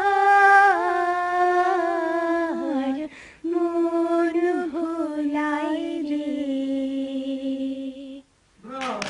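A woman singing unaccompanied into a microphone, drawing out the last long notes of a Bengali song. There is a brief breath about three seconds in, and the final held note ends about eight seconds in.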